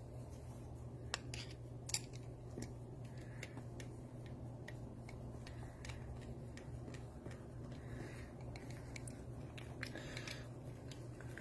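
Light metallic clicks and clinks of American Lock padlock parts being fitted back together by hand, a few at a time with pauses between, over a steady low hum.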